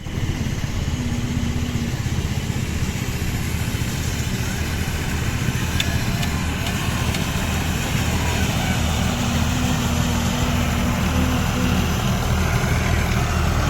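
Tractor engine running steadily, a low, even rumble.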